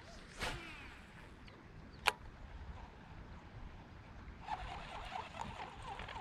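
Spinning rod cast and retrieve: a whoosh as the line goes out just after the start, a sharp click about two seconds in, then the reel cranked in with rapid ticking from about four and a half seconds. Low wind rumble on the microphone throughout.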